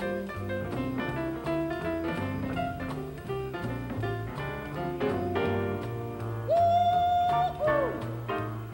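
Small jazz group swinging: double bass walking under piano and electric guitar. A woman's voice holds one long high note about two-thirds of the way through and lets it fall off at the end.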